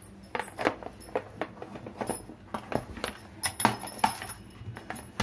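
A run of irregular sharp clinks and knocks, a dozen or so, of plates being handled while a cake is flipped from one plate onto another.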